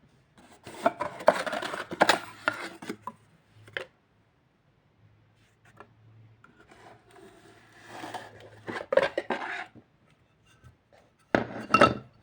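Scraping and clattering in three bursts, with sharp clicks, over a faint steady low hum.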